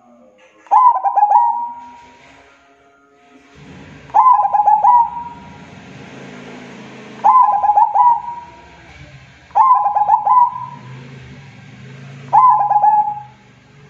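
Zebra dove (perkutut) calling: five phrases of quick stuttering coos, each about a second long, coming every two to three seconds, over a faint background hiss and hum.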